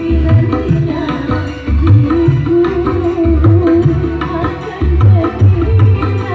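Dangdut band music played loud through a PA sound system: the kendang hand drums keep the steady dangdut beat with deep low strokes under a sustained melody line.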